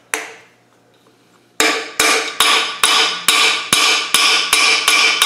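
Ball-pein hammer striking a large steel nut used as a drift, driving a core (frost) plug into a 4-cylinder Rover engine block. One blow, a pause of about a second and a half, then steady blows about two and a half per second, each with a short metallic ring.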